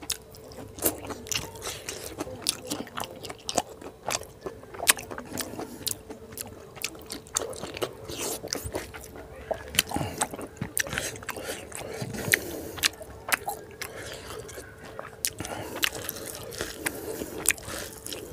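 Close-miked chewing of a mouthful of rice and pork curry, with frequent sharp wet mouth clicks and lip smacks throughout. A faint steady hum runs underneath.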